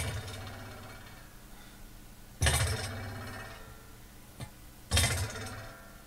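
Metal soldering iron stand dropped onto a workbench, played back as a raw recording: three separate clanking impacts about two and a half seconds apart, each trailing off in a short metallic ring, with a faint tap just before the third.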